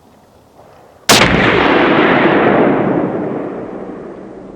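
A single shot from a Remington .308 rifle, about a second in, followed by a long echo that fades away over about three seconds.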